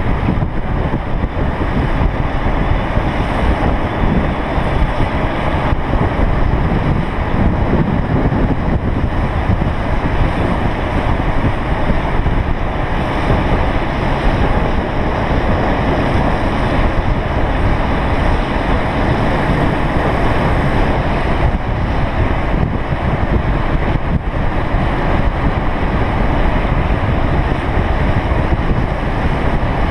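Steady wind rushing over the microphone of a camera moving at downhill longboarding speed, over a low, even rumble of wheels rolling on asphalt.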